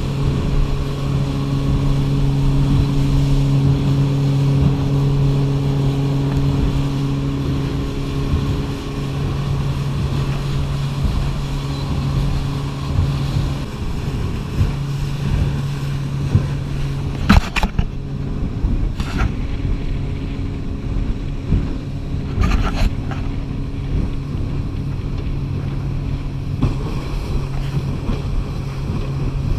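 Outboard motor on a small boat running at a steady pitch under way, with wind and water rushing past. A few sharp knocks come in the middle, two close together and another a few seconds later.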